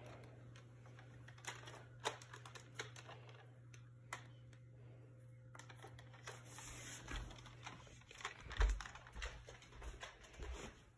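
Quiet handling noise: scattered small clicks and rustles as plastic Nerf blasters are picked up among blankets, then low thumps of footsteps and the phone being carried in the second half, the strongest about two-thirds of the way through.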